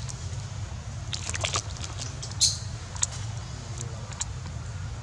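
Several brief high-pitched squeaks and clicks, typical of a baby long-tailed macaque, scattered over a low steady rumble.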